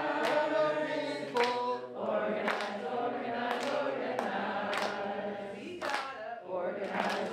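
A group of people singing together in unison, a chorus of mixed voices holding drawn-out notes.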